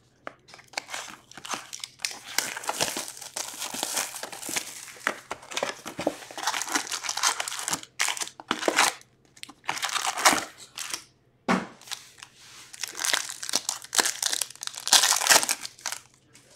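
Plastic and foil wrapping of a sealed box of hockey cards and its packs being torn open and crinkled by hand. It comes in irregular bursts of crackling, with a few brief pauses.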